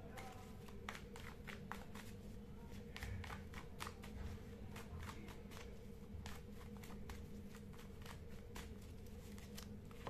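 Tarot cards being shuffled by hand: soft, irregular flicks and taps of the cards against each other, over a faint steady hum.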